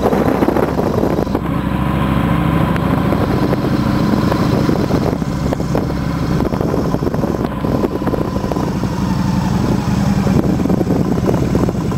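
Motorcycle engine running steadily as the bike rides slowly along, heard from on the bike.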